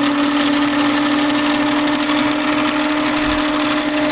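Singer Stylist 457 sewing machine running at a steady speed, its motor giving a constant hum as it stitches with the stitch length set very short.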